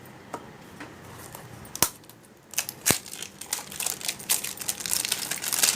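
Plastic bubble wrap crinkling as it is unwrapped by hand from a small cream jar, with a couple of sharp clicks, becoming a dense steady crackle in the second half.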